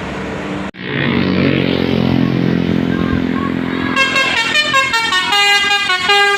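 A vehicle engine runs close by, and about four seconds in a Basuri telolet horn plays a quick tune of stepped, several-toned notes over it.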